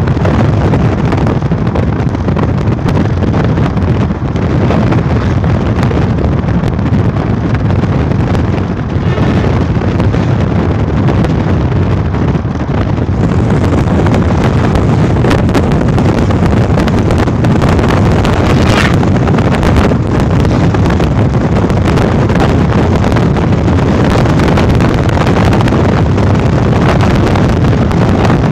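Wind buffeting the microphone in a loud, steady low rumble, over the running noise of a moving vehicle.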